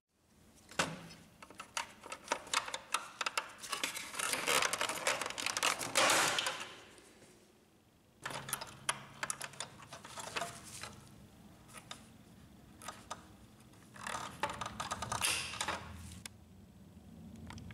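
Rapid plastic clicking and rattling from hands working the plastic parts of an Epson inkjet printer's paper-feed area, in three bursts, the first and loudest lasting several seconds.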